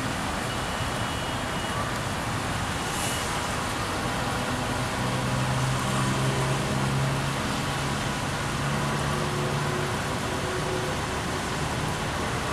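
Steady outdoor city traffic noise, with a low engine hum that grows stronger in the middle and fades near the end.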